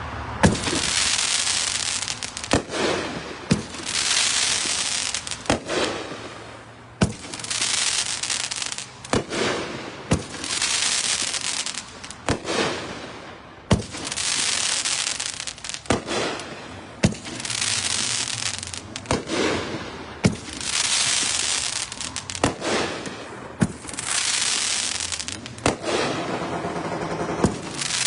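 Consumer fireworks cake (Tokyo Time Bomb) firing its shots: a sharp launch pop about every two seconds, each followed by a second or so of loud hissing crackle. It has a buzzy, automotive-like sound.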